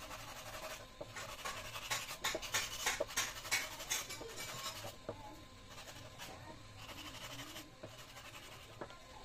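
A small wooden handle being hand-sanded with a folded piece of sandpaper, in quick rasping back-and-forth strokes. The strokes are busiest over the first five seconds, then turn softer and sparser.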